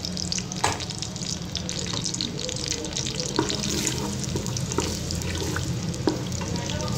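Sliced onions sizzling in hot cooking oil in a pressure cooker: a steady hiss with scattered small crackles, and a wooden spoon stirring them.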